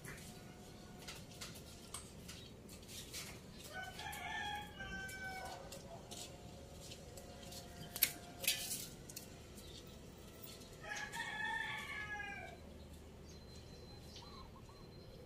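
A rooster crowing twice, about six seconds apart, each crow lasting about a second and a half. Between the crows come scattered sharp knocks, two of them close together and louder than the crows.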